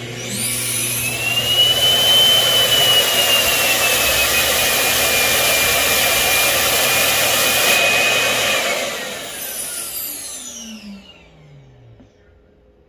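Roborock S7 MaxV Ultra dock's self-emptying suction motor running, sucking debris out of the robot's dustbin. It starts abruptly and runs loud and steady with a high whine that rises slightly and then sags. About eight and a half seconds in it cuts out and winds down with a falling whine.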